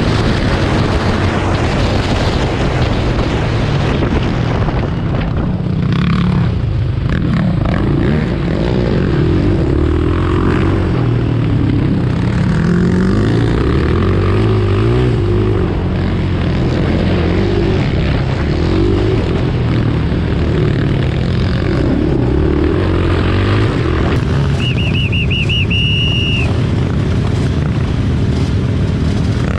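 Racing quad engines running hard from on board, their pitch rising and falling with acceleration and gear changes. A brief high, wavering tone sounds near the end.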